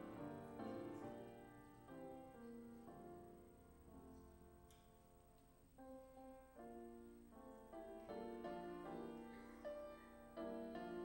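Soft piano music, with struck notes sounding singly and in chords. It grows quieter about halfway through and swells again near the end.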